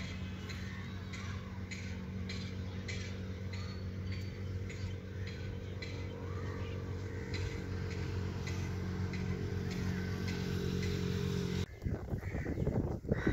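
Steady low engine hum with a regular tick about twice a second; it cuts off suddenly near the end and a different, uneven sound follows.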